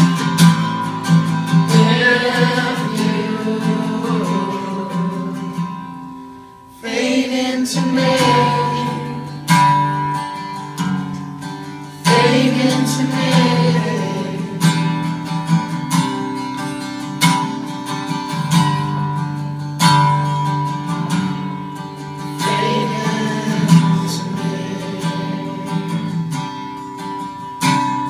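Live solo acoustic guitar being strummed, with a man singing over it. The playing falls away almost to nothing about six seconds in, then comes back in sharply.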